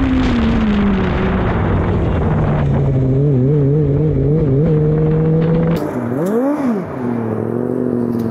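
Yamaha R6 600 cc inline-four sport-bike engine in a Formula SAE car, its pitch falling as the car slows after a launch, then running at low speed with the throttle wavering. Near the end, a single rev up and back down, then idling.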